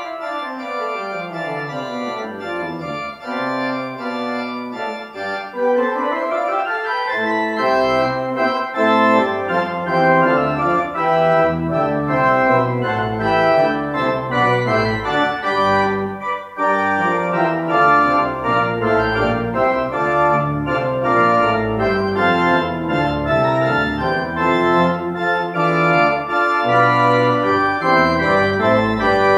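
Casavant pipe organ being played: a falling run of notes opens, a rising run follows, then full sustained chords with deep bass notes come in about seven seconds in and the playing grows louder.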